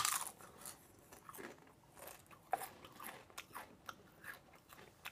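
A Pringles sour cream and onion potato crisp bitten with a crunch at the start, then chewed with a run of small, irregular crunches.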